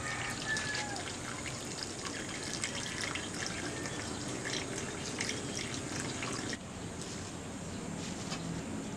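Water poured from a plastic jug into a metal wok, a steady trickle splashing into the water already in the pan. It stops abruptly about two-thirds of the way through.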